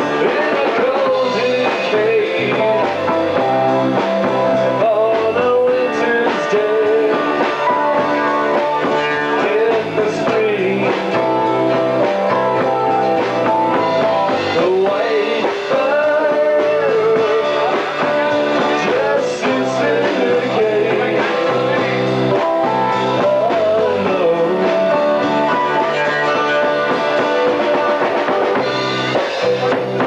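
Rock band playing live: electric guitars over a drum kit, with singing.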